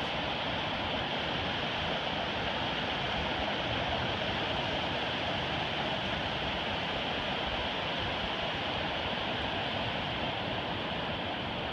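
Ocean surf washing onto a sandy beach, a steady, even rush of noise.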